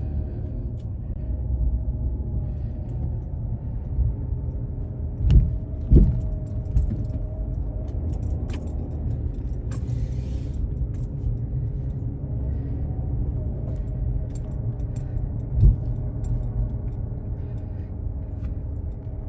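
Car engine running steadily: a low rumble with a level hum over it, broken by a few soft thumps about five, six and sixteen seconds in.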